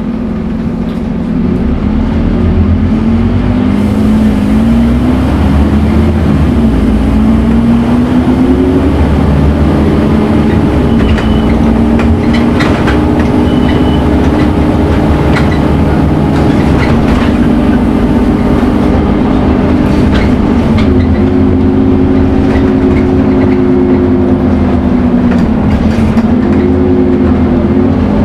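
Scania N230UD Omnicity double-deck bus's diesel engine running hard under load, its pitch rising and then dropping back several times as the bus accelerates and the automatic gearbox changes up, with the whine bus fans call the Scania "hoover" sound, over light clicks and rattles.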